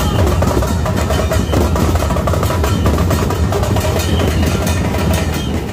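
Many large danka drums beaten together in a fast, dense rhythm, over the noise of a big crowd.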